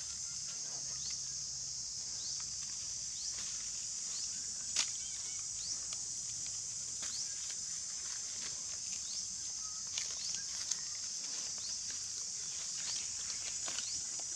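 Steady high-pitched drone of insects, with scattered short high chirps and a few light clicks and rustles of dry leaves.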